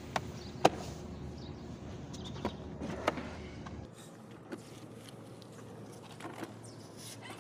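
Hard plastic door and body of a children's ride-on toy car being handled, giving a few sharp clicks and knocks, the loudest about half a second in. Birds chirp faintly in the background.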